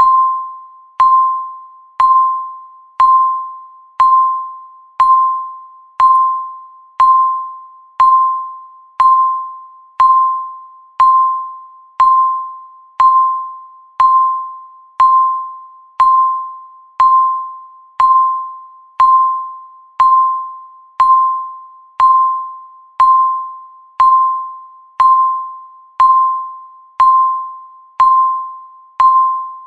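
Countdown timer beeping once a second: a single high chime-like tone that strikes sharply and fades, repeated evenly about thirty times.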